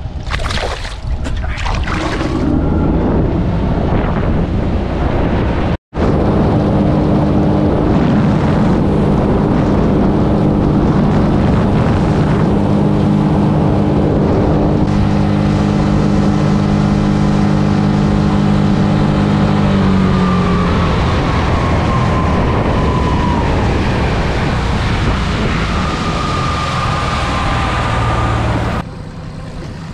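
Outboard motor of a fishing boat running under way, with wind and water rushing over it. The sound breaks off for an instant about six seconds in, the engine note shifts about twenty seconds in, and the level drops sharply near the end.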